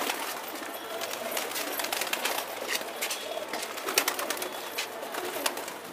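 A flock of male domestic pigeons cooing, with short wing flaps and clicks of the birds moving about.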